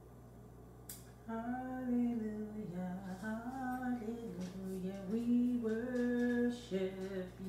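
A woman singing slowly and unaccompanied in long, drawn-out notes, starting about a second in, over a faint steady hum.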